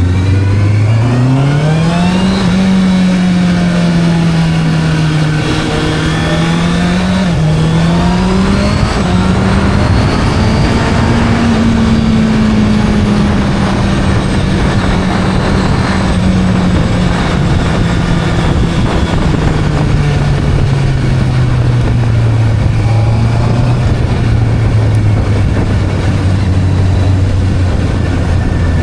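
Sport motorcycle engine pulling hard in the first couple of seconds, a quick gear change about seven seconds in, then holding a high steady note before slowly falling as the bike slows, over steady rushing noise.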